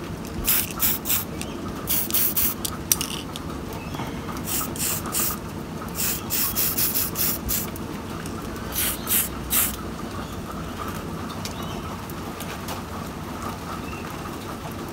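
Spray paint can hissing in short bursts of about a second each, several in the first ten seconds, as matte black is misted lightly onto a model engine. Steady rain underneath.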